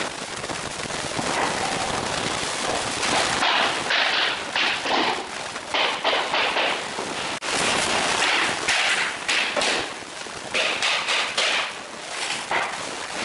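Hammer striking a tapping block held against the edge of a flooring plank, knocking the plank's joint tight against the laid row. The knocks come in quick, irregular runs.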